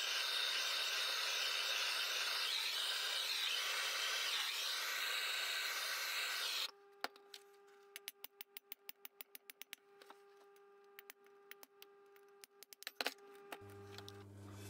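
A steady hiss that cuts off abruptly about seven seconds in. Then a mallet tapping on a BSA B31 cylinder head to drive out the rocker spindles: a quick run of light taps, then a few more near the end.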